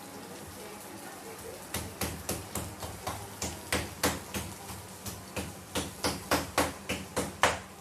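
A rapid series of sharp knocks, about three or four a second, beginning a couple of seconds in and going on steadily.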